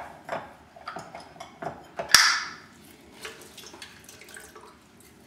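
Lime juiced with a hand-held citrus squeezer over a blender jar: scattered light clicks and knocks of kitchen handling, with one louder clatter about two seconds in.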